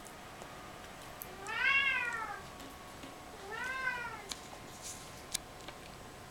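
Domestic cat meowing twice, each call rising and then falling in pitch; the first is louder and longer than the second.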